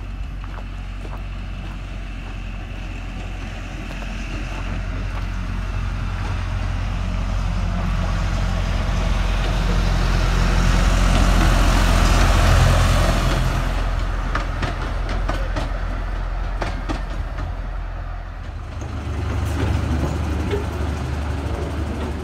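Narrow-gauge diesel locomotive D1087 "Meirionnydd" approaching and passing close by. Its engine drones steadily and the wheels rush on the rails, growing loudest about twelve seconds in and then fading, with sharp clicks from the wheels on the track. Near the end the engine runs on more quietly as the locomotive moves slowly in the yard.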